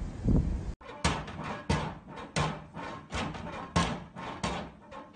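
A steady beat of sharp thumps, about three every two seconds, starting after a brief cut about a second in.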